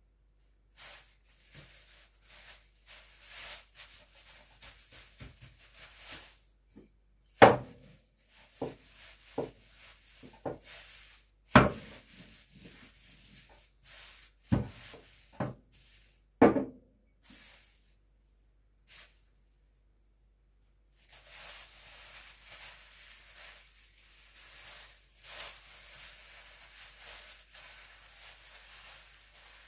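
Plastic bag and plastic gloves crinkling and rustling as dough is worked inside the bag, broken in the middle by about seven sharp knocks on the worktop, the loudest sounds, before the crinkling resumes.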